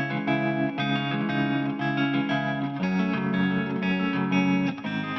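Background pop music: an instrumental guitar passage with strummed chords and no singing.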